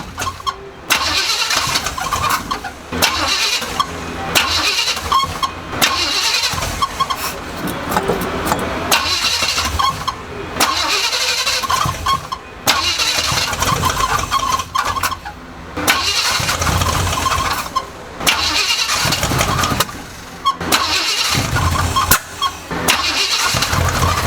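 Truck engine with a freshly installed, oversized flat-tappet camshaft being cranked and started in repeated bouts. It sputters, pops and cuts out between tries, then briefly catches and runs rough near the end. The ignition timing is off and the plug wires are mixed up, so it backfires instead of running cleanly.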